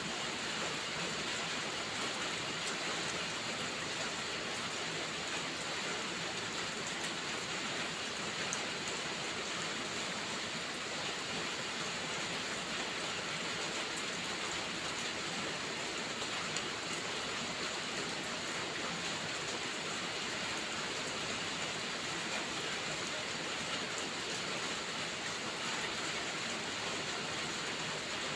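Heavy rain falling steadily, an even unbroken hiss with faint scattered ticks.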